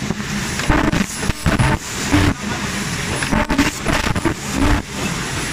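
Automated ultrasonic-welding production line running: busy mechanical noise with an irregular run of louder bursts and low thumps.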